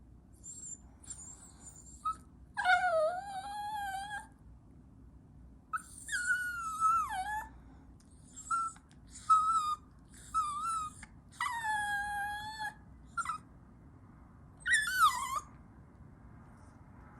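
Puppy whining and howling in a run of high-pitched cries: several long drawn-out ones that waver and slide down in pitch, with short yelps between them.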